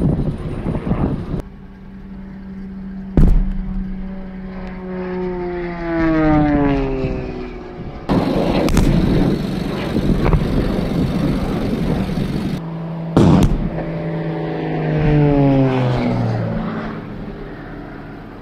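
Air-show pyrotechnic explosions going off, with a sharp blast a few seconds in and another about two-thirds through. Between them aircraft pass overhead twice, their engine tone sliding down in pitch as each goes by.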